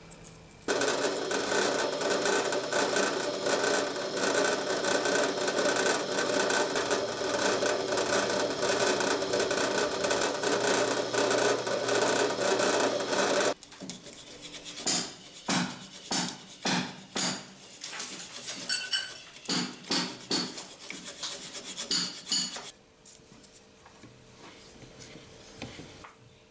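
A loud, steady scraping noise runs for about thirteen seconds and stops abruptly. It is followed by a hand file scraping over the ox-horn handle piece clamped in a vise, in about a dozen separate strokes.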